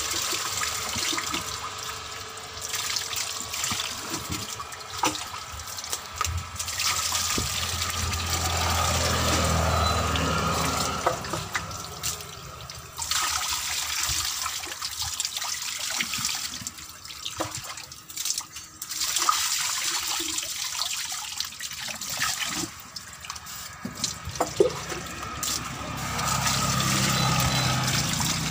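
Water splashing and wet rubber being rubbed by hand on a tractor tyre tube, coming and going in uneven swishes with a few sharp knocks. This is the water check for a puncture.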